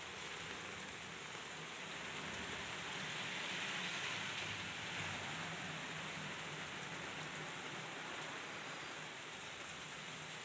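Heavy rain pouring down onto a wet road, a steady hiss that swells briefly about four seconds in.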